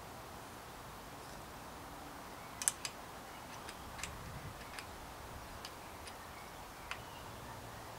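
Scattered light clicks and taps of tools and small metal bike parts being handled, with a short cluster about two and a half seconds in the loudest, over a steady background hiss.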